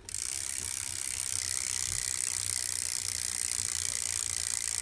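BMX bike's rear freewheel ratcheting steadily as the wheel spins, its pawls clicking too fast to count so that they blur into a buzz. It starts suddenly.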